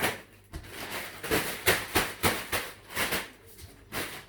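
Shopping being handled and unpacked: an irregular run of about ten short rustles and knocks from packaging and items being moved.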